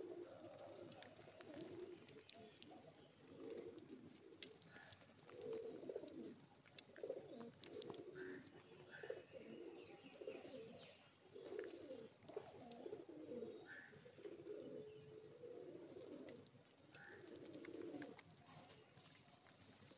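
A flock of feral rock pigeons cooing: many quiet, low coos overlapping one another throughout, with a few faint scattered clicks.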